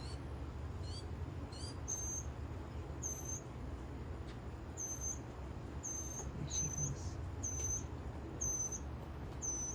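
Birds chirping: three quick rising chirps near the start, then a short, high, thin peep repeated about once a second, over a steady low rumble.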